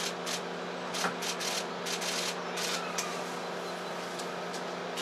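Steady hum of an idling car engine, with irregular short scuffs and rustles of footsteps and clothing on wet tarmac and a soft knock about a second in.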